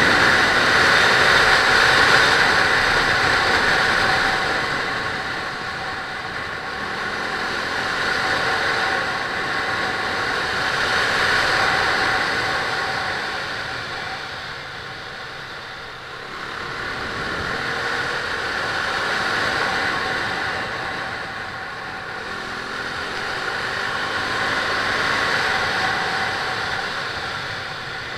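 Riding noise from a KTM RC 390 motorcycle heard through a helmet-mounted camera: wind and road rush swelling and fading several times with speed through the bends, with the single-cylinder engine faintly rising and falling in pitch underneath.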